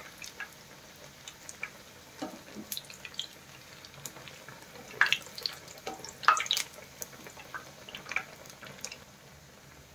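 Batter-coated bread pakoras deep-frying in hot oil in a kadhai: a steady, quiet sizzle with scattered crackles, and a few sharper clicks about five and six and a half seconds in.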